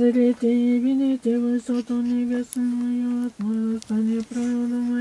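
An elderly woman chanting prayers on a near-monotone pitch, each syllable or phrase held level and broken by short pauses.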